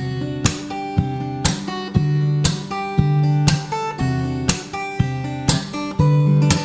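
Acoustic guitar song: steady strummed chords, about two strums a second.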